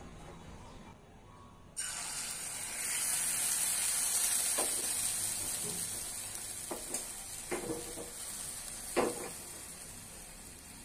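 Liquid hitting a hot pan of sugar sizzles loudly, starting suddenly about two seconds in, then the hiss of the foaming, bubbling mixture slowly fades. A few light knocks come in the second half.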